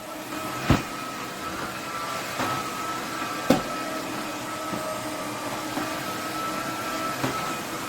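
Roborock F25 wet-dry vacuum running with a steady hum and a thin high whine, with two sharp knocks, one just under a second in and one about three and a half seconds in, and a few fainter taps.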